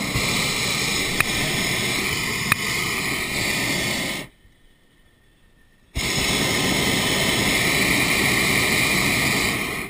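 Hot-air balloon's propane burner firing with a loud, even roar that cuts off abruptly after about four seconds and starts again under two seconds later, running until just before the end. Two sharp clicks in the first few seconds.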